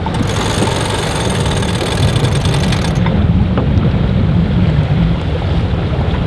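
Wind buffeting the microphone on a sailing yacht under sail, a steady low rumble over the wash of water along the hull.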